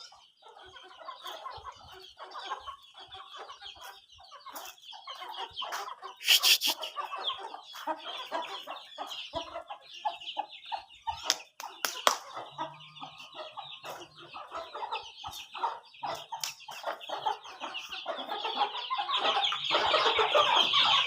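A flock of chickens clucking and calling continuously, growing louder toward the end, with a few sharp knocks.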